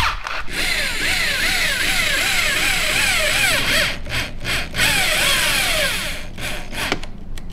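Power drill running a countersink bit into aluminum deck sheeting, its pitch swooping up and down a few times a second as the bit cuts. It stops and starts in short spurts near the end.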